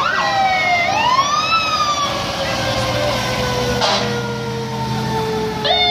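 Fire truck sirens wailing: the pitch climbs, then falls slowly over several seconds, and climbs quickly again near the end, with more than one siren overlapping.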